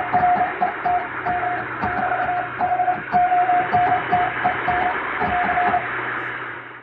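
Morse code (CW) beeping: a single steady-pitched tone keyed in dots and dashes over shortwave-style hiss, static crackle and low hum, with noise and fading added to mimic shortwave reception. The keying stops about six seconds in; the hiss and hum carry on briefly and fade out at the very end.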